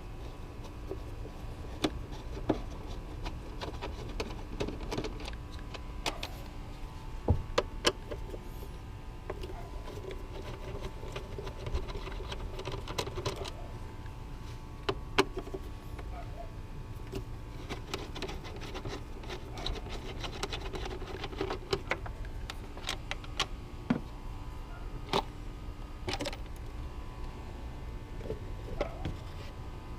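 Screws being backed out of the plastic engine air filter housing and the lid being handled: repeated sharp clicks and knocks, with several stretches of small-motor whirring from a power driver.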